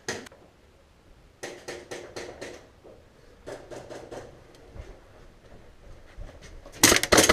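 Airsoft guns firing strings of sharp shots, about six a second. One string comes about a second and a half in, a shorter one follows, and a louder, closer string comes near the end.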